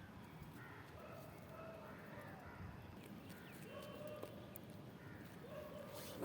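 Sheep bleating faintly, about four short, level-pitched calls spread through the stretch, over a low rumbling background.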